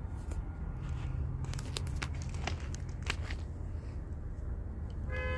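Low, steady rumble of idling diesel locomotives, with a scattering of sharp crackling clicks in the first few seconds. A steady-pitched train horn starts sounding near the end.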